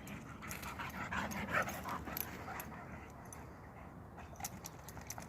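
Two dogs playing, giving faint short whines and breaths, most of them in the first couple of seconds, with a few small clicks after.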